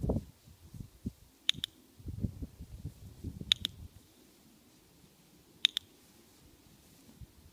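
A dog-training clicker pressed three times, about two seconds apart, each press a sharp double click. Under it, soft low rustling of footsteps on grass, fading out after about four seconds.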